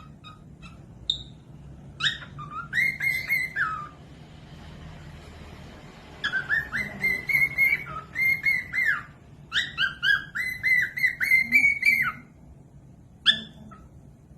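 A cockatiel whistling its song in three long phrases of quick, warbling whistled notes, with single short chirps before and after.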